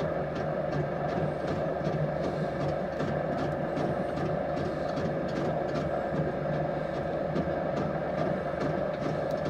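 Potter's wheel running with a steady motor hum while a clay plate spins under the potter's wet fingers, with faint light ticks repeating a few times a second.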